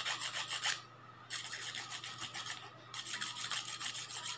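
A metal manicure tool being sharpened against a metal sharpener with quick back-and-forth scraping strokes. The strokes break off briefly about a second in and again near three seconds.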